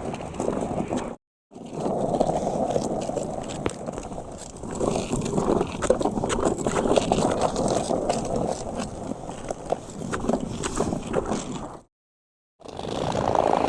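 Surfskate wheels rolling over pavement: a steady grinding rumble with many small clicks from bumps and joints in the surface. It drops out to silence briefly about a second in and again near the end.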